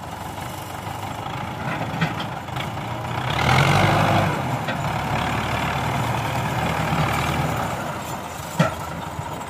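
Belarus 510 tractor's diesel engine working under load, revving up about three seconds in as it pulls a heavily loaded sugarcane trailer, then holding a steady labouring note. A single sharp click comes near the end.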